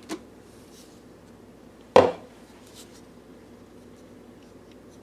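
One sharp clack about two seconds in, with a brief ring, as a hard plastic NutriBULLET part is knocked or set down on a hard surface. Around it are a few faint handling ticks.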